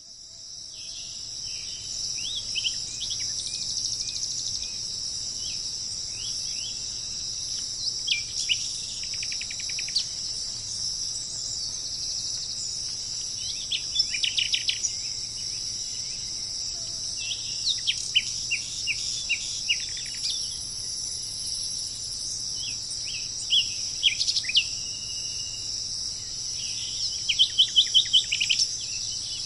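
Songbirds singing short phrases of quick, rapid notes every few seconds over a steady, high-pitched chorus of insects, fading in over the first couple of seconds. The bird phrases come thickest and loudest near the end.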